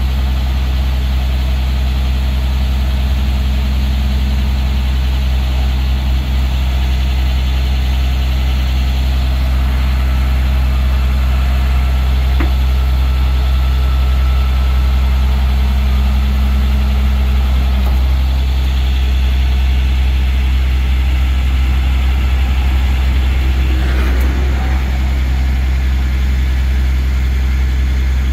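Rollback tow truck's engine idling steadily, a constant low hum.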